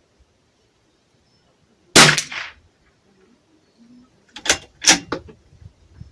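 A single shot from a Bergara B14R .22 rimfire bolt-action rifle about two seconds in, with a short ringing tail. About two and a half seconds later come a few quick, sharp metallic clicks of the bolt being worked.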